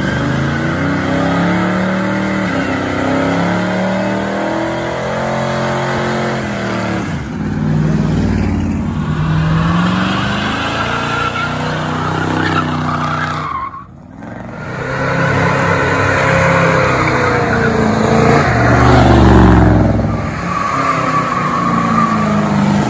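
Classic American cars doing burnouts: engines revved hard, pitch rising and falling, over a continuous squeal of spinning tyres. The sound drops out briefly about 14 seconds in, then a second burnout comes in just as loud.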